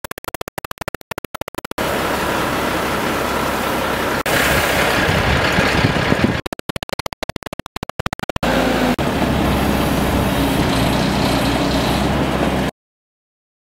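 An engine running steadily under a loud hiss. The sound breaks into rapid stuttering dropouts twice, then cuts off suddenly near the end.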